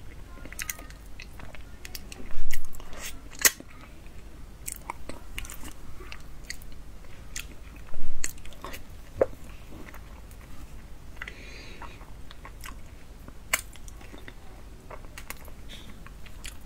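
A person chewing durian close to the microphone: a stream of short, wet mouth clicks and smacks, with two much louder bursts about two and eight seconds in.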